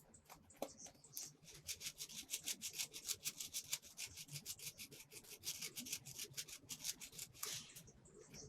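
Rapid rhythmic scratching, about eight to ten short strokes a second, ending in a longer swish near the end.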